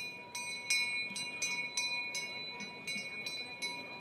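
A bell struck rapidly and evenly, about three strikes a second, its ringing tone held between strikes.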